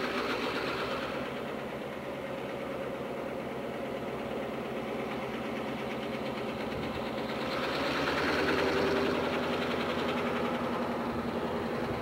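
EMD GP16 diesel locomotive engine running steadily, growing louder for a couple of seconds about eight seconds in.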